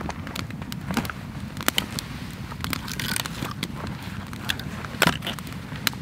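Campfire of split wood crackling, with irregular sharp pops and snaps, along with the scuff and knock of firewood being handled at the fire ring. The loudest knock comes about five seconds in.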